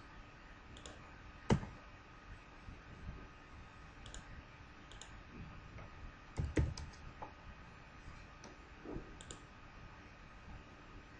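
Sparse keystrokes on a computer keyboard, single clicks with long gaps between them. The loudest comes about one and a half seconds in, and a short run of clicks follows about six and a half seconds in.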